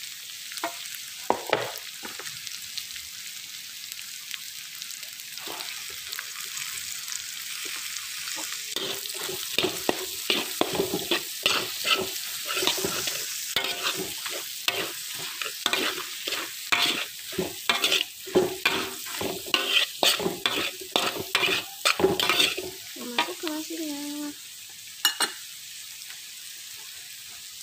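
Stir-frying in a wok: spice paste, egg, meatballs and freshly added cabbage and spring onion sizzling in hot oil. A metal spatula scrapes and knocks against the wok, a few strokes a second through the middle, and the sizzle goes on alone near the end.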